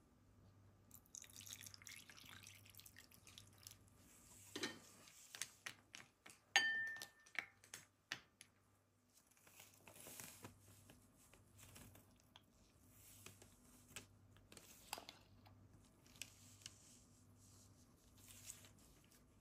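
Quiet food-handling sounds around a glass mixing bowl: scattered soft taps, drops and rustles, with one short ringing clink about six and a half seconds in.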